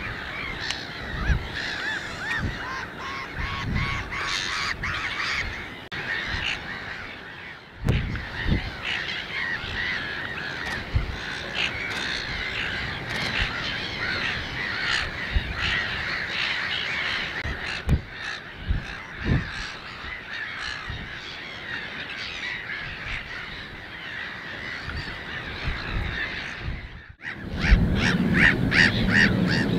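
A continuous chorus of many waterbirds calling at once, a dense chatter of overlapping harsh calls with occasional low thumps. Near the end it breaks off and gives way to louder, closer repeated honking calls.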